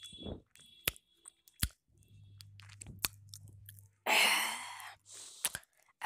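A cat licking its paw and washing its face: scattered small wet licking clicks, with a loud breathy rush of noise about four seconds in.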